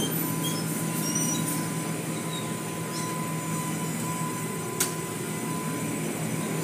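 Automatic tunnel car wash running, heard from inside the car: a steady mechanical rumble and hum of the wash equipment with water and foam on the car. A single sharp click about five seconds in.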